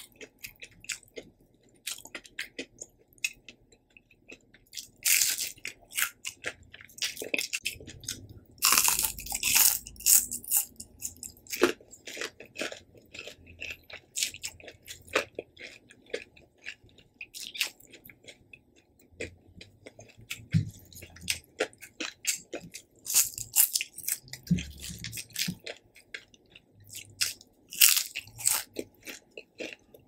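Close-miked chewing of crispy breaded fried shrimp: irregular sharp crunches and crackles as the batter breaks between the teeth, with louder bursts of crunching coming in clusters a few times through.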